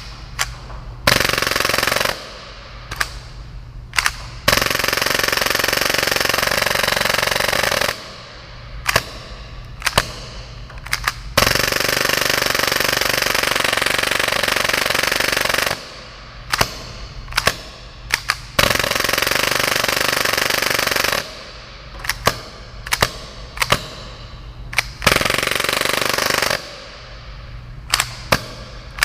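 Gas-powered full-auto airsoft Hi-Capa pistol firing long rapid bursts of about one to four seconds, with single pops and short strings of shots in the pauses between them.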